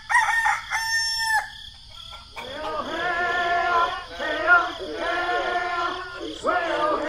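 A rooster crowing at the start. From about two seconds in comes a run of overlapping high-pitched chattering calls that bend up and down, like squeaky cartoon voices or clucking.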